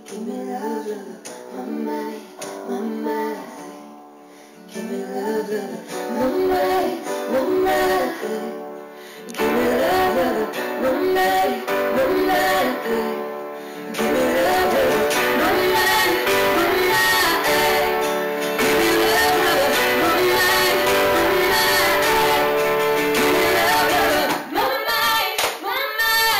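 Live acoustic music: a woman singing over piano and acoustic guitar. It starts soft, then swells fuller and louder about halfway through.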